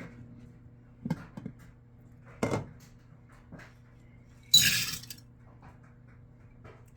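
Kitchen clatter as washed navy beans go from a strainer into a crock pot: a few light knocks, then a brief rattling rush about four and a half seconds in as the beans are tipped in. A faint steady low hum runs underneath.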